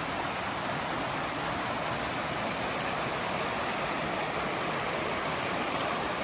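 A creek rushing steadily over rocks, running full after overnight rain.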